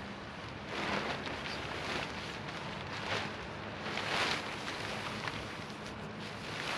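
Tarp fabric rustling and swishing as it is shaken out and pulled over a hammock, in several short bursts: about a second in, at about three seconds, around four seconds and near the end.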